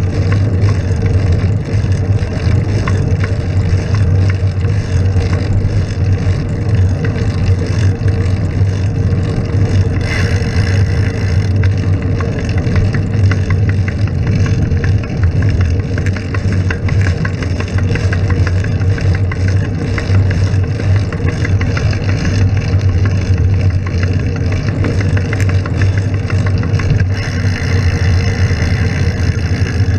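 Steady traffic and road noise, with car engines running, picked up by a camera on a bicycle.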